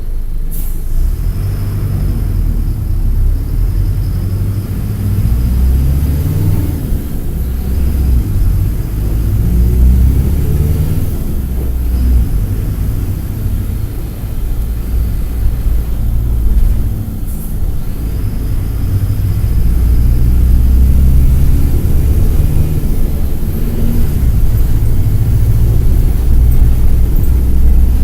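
Mercedes-Benz OF-1722M articulated bus's OM-924 LA four-cylinder turbodiesel pulling under load, heard from on board. Its pitch climbs as the bus accelerates and falls back at each gear change, several times over, and it runs louder in the last third.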